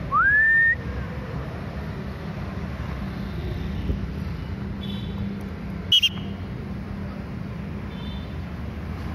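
A person's loud whistle glides up to a high note and holds it briefly. Steady road-traffic rumble follows, and a short, sharp, high chirp comes about six seconds in.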